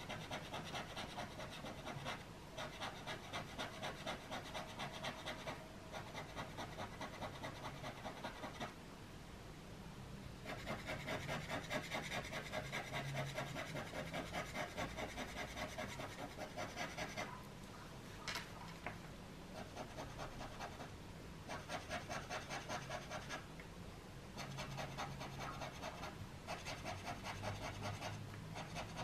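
Metal palette knife scratching through a layer of oil pastel on paper (sgraffito): quick back-and-forth scraping strokes in runs of a few seconds with short pauses between them, and a single sharp click partway through.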